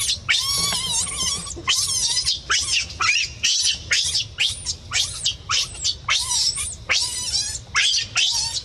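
Baby macaque crying and screaming: a rapid run of high-pitched, wavering cries, about two or three a second.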